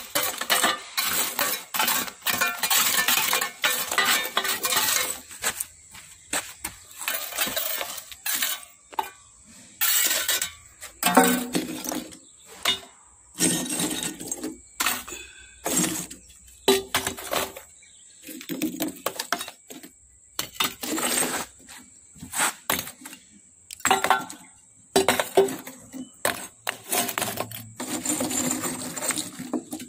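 Hard lumps of carbon clattering and clinking as they are dropped and piled into a metal box, packing parts for heat treatment. A dense run of clatter for the first few seconds, then separate handfuls about every second.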